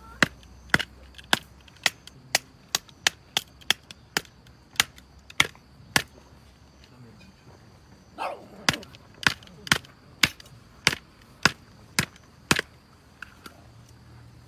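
A series of sharp knocks or blows, about two a second, stopping for about two seconds midway and then going on at the same pace.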